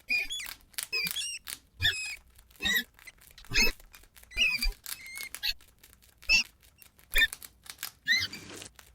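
Rats squeaking: short, high, wavering squeaks about once a second, with sharp clicks and scratches between them.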